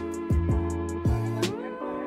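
Background music: an instrumental track with held notes over a steady beat of deep drum hits and evenly spaced high ticks.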